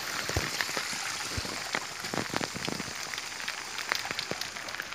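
Rain falling on a wet street and puddles: a steady hiss with many separate drop ticks.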